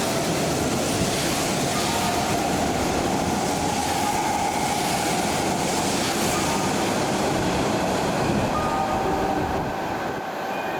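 A Kintetsu electric commuter train running along the platform, with a loud steady rumble of wheels on rail and a thin whine over it. The sound eases off near the end.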